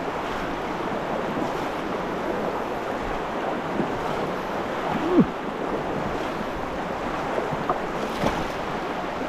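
River water rushing steadily over rocks, with one brief sharper sound about five seconds in.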